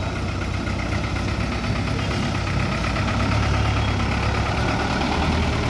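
A motor vehicle's engine idling steadily, a low hum that grows slightly louder over the few seconds.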